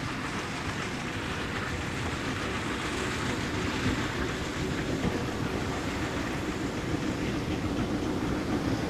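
Steam locomotive hauling a train of coaches along the line, running steadily and growing a little louder as it draws closer, with wheels clicking over the rail joints. Gusty wind rumbles on the microphone.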